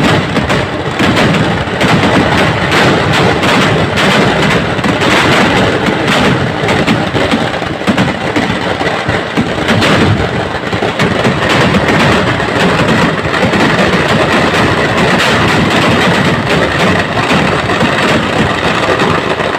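Festival fireworks going off as a fast, unbroken run of firecracker bangs and booms that merge into one continuous loud crackle.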